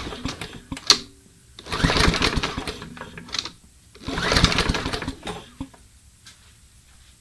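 Briggs & Stratton lawn mower engine pulled over on its recoil starter cord, three pulls, the first already under way at the start, each a short rapid chattering crank that stops without the engine running. The engine is being cranked for a spark test with an inline tester on the spark plug.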